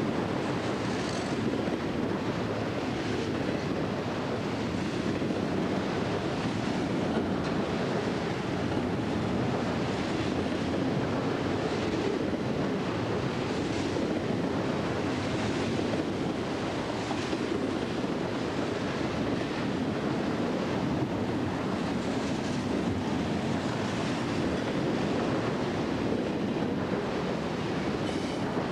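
BNSF double-stack intermodal container train rolling past at speed close by: a steady rumble of wheels on rail and the well cars rushing past.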